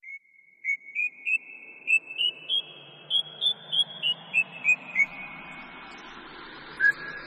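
A whistled tune of about fifteen short, clear notes that climb step by step in pitch and then come back down, with one last lower note near the end, over a faint steady hiss.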